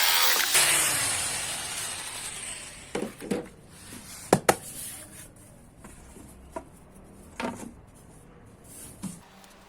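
Pieces of wood knocking and clattering as they are handled: about seven short knocks, two quick pairs then single taps, after a loud noise cuts off about half a second in and fades away.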